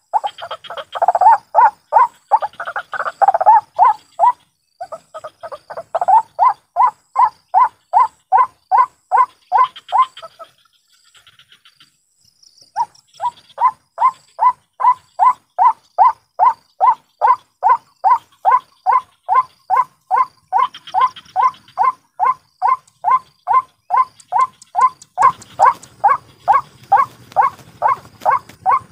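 White-breasted waterhen calling: a long run of harsh, croaking 'kru-ak' notes repeated steadily, about two to three a second. The calling breaks off for about two seconds midway, then resumes. Near the end a low rustling comes in under the calls.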